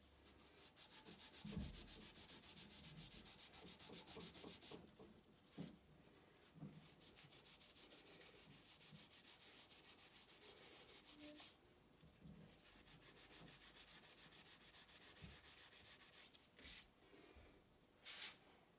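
Rapid back-and-forth scrubbing on the rusty metal of a lathe, several strokes a second, in three long spells with short pauses and a few light knocks between them.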